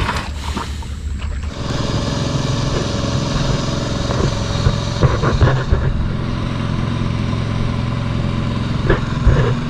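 Small fishing boat's engine running, picking up and settling into a steady drone about a second and a half in.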